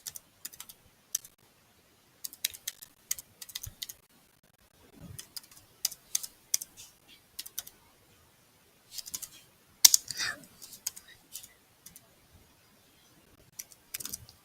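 Typing on a computer keyboard: keystrokes come in uneven bursts with short pauses between them.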